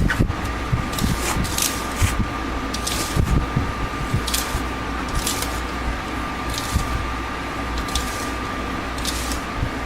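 Electric fan running steadily with a faint high whine, under short, irregular scraping strokes of a spoon in dry bath-bomb powder (baking soda and citric acid) being divided between bowls.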